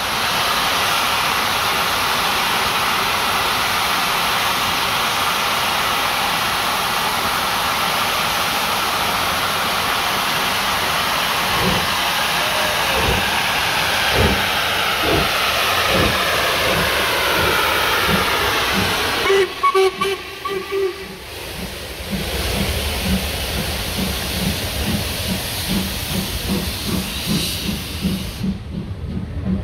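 Steam locomotive 45596 Bahamas, an LMS Jubilee, letting off a loud, steady hiss of steam, with a few heavy beats from about twelve seconds in. After a break about twenty seconds in, a fast, even rhythmic pounding of about three beats a second follows.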